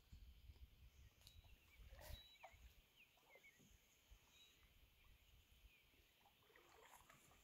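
Near silence: calm marsh ambience with a few faint, short bird chirps and a couple of soft clicks about one and two seconds in.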